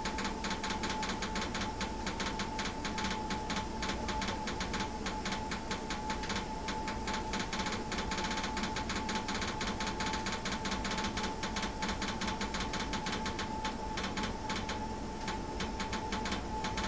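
Rapid, steady mechanical ticking from a vehicle, over a steady high-pitched whine; the ticking is a fault noise that the owner suspects is a sign that a newly fitted system isn't right.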